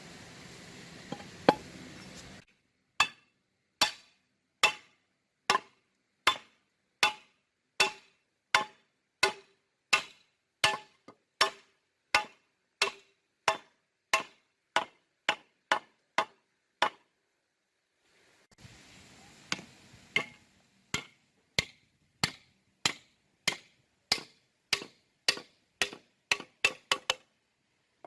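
A steady run of sharp striking blows, each with a short ring, a little more than one a second. They break off for a couple of seconds near the middle, then resume and quicken near the end.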